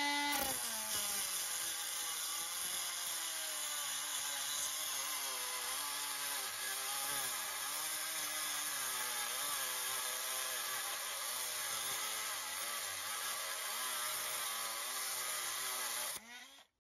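Small high-speed rotary tool with an abrasive cut-off wheel grinding into the steel head of a stuck Phillips-head screw on a motorcycle oil pump cover. A steady motor whine wavers and dips in pitch as the wheel bites, over a gritty grinding hiss, and cuts off shortly before the end.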